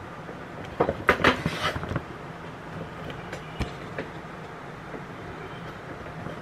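Handling noise from the camera being gripped and moved: a cluster of knocks and rubbing about a second in, then a steady low hum with one sharp click near the middle.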